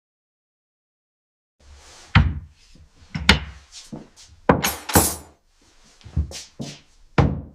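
Silence for about a second and a half, then a run of sharp knocks and clatters, about eight or nine, some with a short ring after them.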